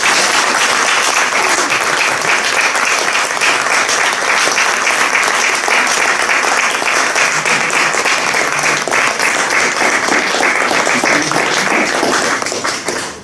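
Audience applauding: dense, steady clapping from a roomful of people that dies away near the end.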